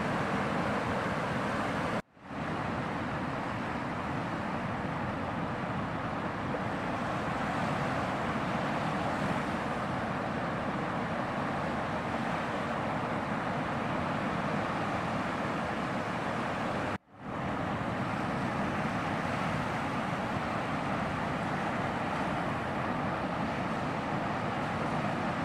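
Steady rushing noise of ocean surf breaking. It drops out twice, about two seconds in and again about seventeen seconds in, fading back up each time within half a second.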